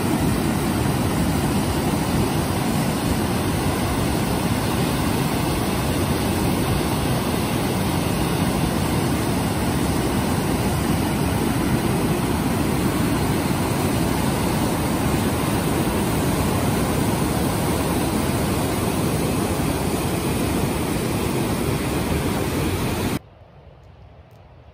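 Waterfall pouring over rocks: a loud, steady rush of white water. It cuts off suddenly near the end, leaving only faint outdoor ambience.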